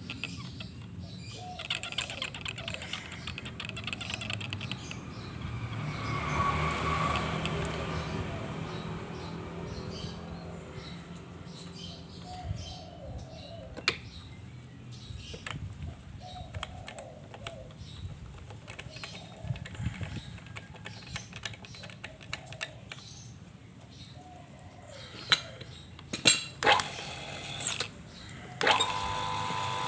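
Irregular light tapping, clicking and knocking of parts being handled, with a few sharper knocks late on, then a steady motor whine starting near the end.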